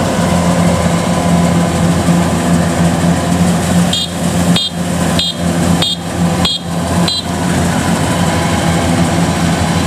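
Kubota DC93 combine harvester's diesel engine running steadily under load with its cutting and threshing machinery, dipping briefly a few times in the middle while working through soft mud, with a run of short high chirps in the same stretch.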